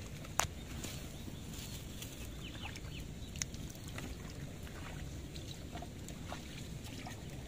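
Chickens clucking faintly over a steady low rumble, with a sharp click a little under half a second in and another about three and a half seconds in.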